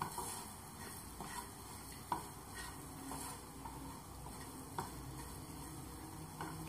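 A spatula stirring and scraping spice masala around a nonstick frying pan, with a faint sizzle and several light knocks of the spatula against the pan.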